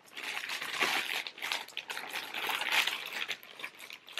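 Clear plastic garment packaging bag crinkling and rustling as it is handled and opened, an irregular crackle.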